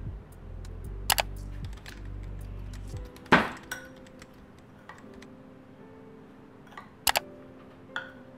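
A metal spoon clinking against a small glass bowl while stirring sliced peaches with sugar: a handful of sharp clinks, the loudest a few seconds in. Soft background music comes in partway through, with a low hum in the first few seconds.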